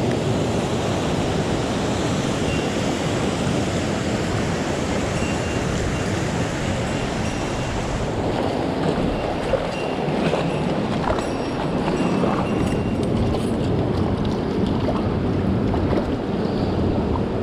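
Steady rush of a mountain stream's flowing water, with a few faint clicks in the second half.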